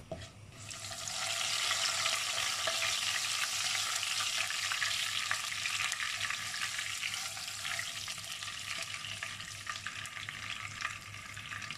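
Whole spices (cumin seeds, bay leaves, cloves and cinnamon) sizzling and crackling in hot olive oil in a nonstick pan while being stirred with a wooden spoon. The sizzle swells about a second in and eases a little toward the end.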